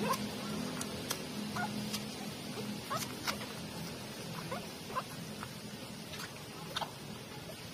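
Newborn puppies squeaking in short, high, often falling cries as they nurse, with small sharp suckling clicks among them. A low steady hum fades out about three seconds in.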